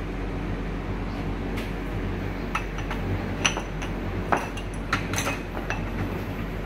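Drinking glasses clinking against one another and the dishwasher rack as they are handled: a string of light, ringing clinks starting about a second and a half in, the loudest near the middle.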